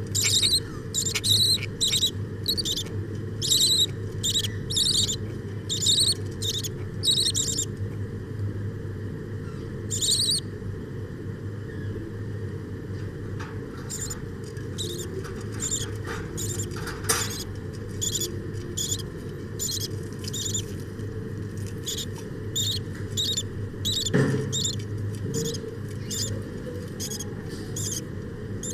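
Small Australian parrots chirping: a run of short, high-pitched squeaks, two or three a second, that breaks off for a few seconds about a third of the way through and then resumes. A steady low hum runs underneath.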